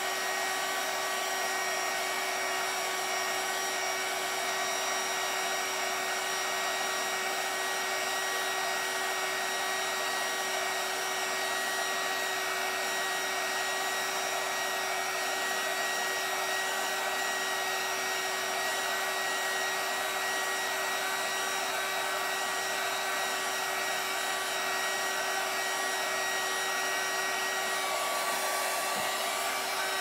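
Handheld heat gun running steadily: a rushing blow of air with a steady whine from its fan motor, used to push and dry alcohol ink on a tumbler.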